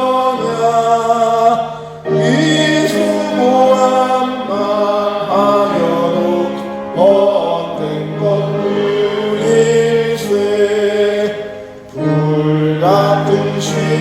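Congregation singing a hymn together in slow, held phrases, with short breaks between phrases about 2 and 12 seconds in.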